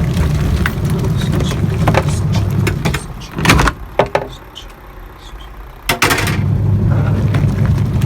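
Twin tub washing machine running with a steady low hum, which drops away for a couple of seconds in the middle between a few sharp knocks and then comes back.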